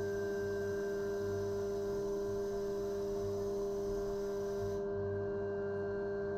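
Haas VF-2SS CNC mill spindle running while an end mill cuts 6061 aluminium, giving a steady whining hum with several held tones.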